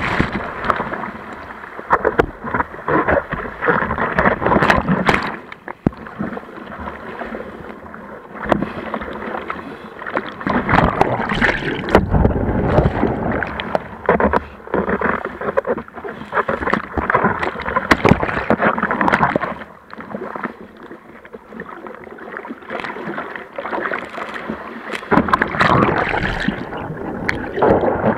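Sea water splashing and rushing over an action camera at water level on a surfboard as the surfer paddles through broken waves. It comes in loud irregular surges that fade and return every few seconds.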